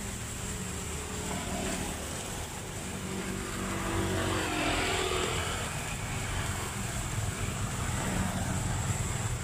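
Road traffic: a vehicle passes, swelling and fading about four to six seconds in, over a steady low rumble, with a steady hiss of beef patties sizzling on a flat-top griddle.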